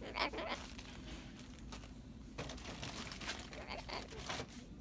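Light crinkling and rustling with scattered small clicks, mostly in the second half.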